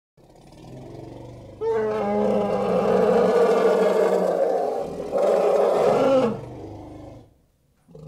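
A large animal's long, loud call with a low pitch. It starts quietly, swells about a second and a half in, dips briefly near five seconds, then falls away a little after six seconds.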